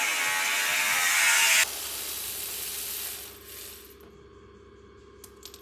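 A power tool used on the suspension runs with a high, hissing whir and cuts off sharply about a second and a half in; a softer steady hum lingers briefly and fades, with a couple of small clicks near the end.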